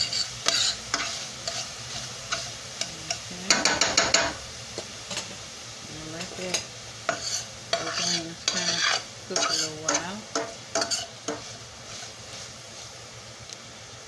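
Metal slotted spoon scraping and stirring diced onions around a stainless steel skillet, over the steady sizzle of the onions frying. The stirring works the browned meat juices off the bottom of the pan. The irregular scraping strokes stop about eleven seconds in, leaving only the sizzle.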